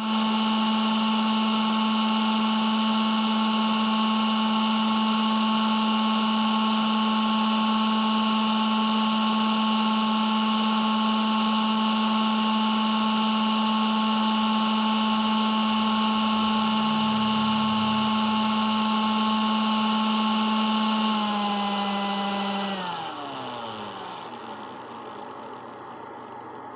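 Microwave oven running on inverter power with a loud, steady hum. About 21 seconds in the pitch dips, and a couple of seconds later it winds down with falling pitch as the power cuts out, the sign of the breaker tripping under the microwave's load.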